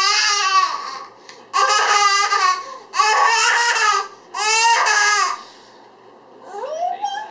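A child's voice making elephant noises: loud, high, wavering trumpet-like calls, about four in the first five seconds, then a softer call that rises and falls near the end.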